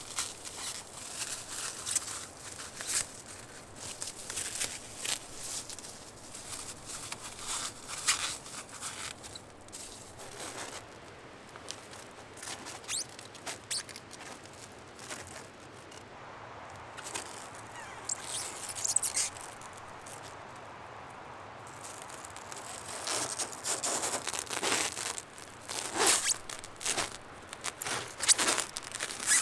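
Clear plastic stretch wrap being pulled off its roll and wound around wooden posts: repeated crinkling and crackling of the film, with squeaky stretching sounds. The crackles come in clusters, with a quieter stretch in the middle.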